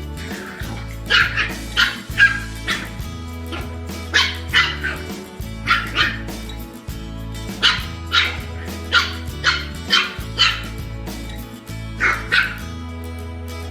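A dog barking repeatedly in short, sharp barks, mostly in quick runs of two or three, over upbeat background music.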